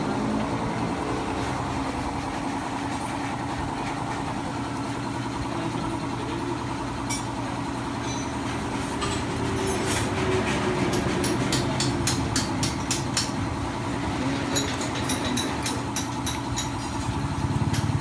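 A steady mechanical drone, like an engine or machine running close by, with scattered sharp metallic clinks and clicks of hand tools on the scooter's rear axle and muffler bolts, from about seven seconds in until near the end.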